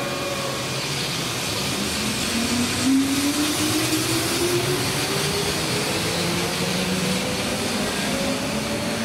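Keihan electric train running through the station, a rumble with a motor whine that rises steadily in pitch over several seconds as the train gathers speed.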